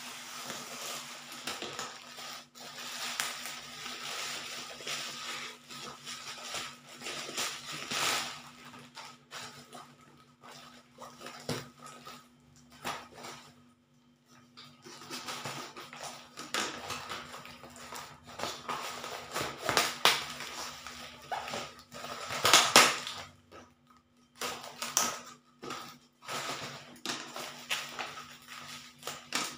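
Parcel packaging being opened by hand: a plastic mailer bag, a cardboard box and bubble wrap rustling, crinkling and tearing in irregular bursts, loudest about three-quarters of the way through.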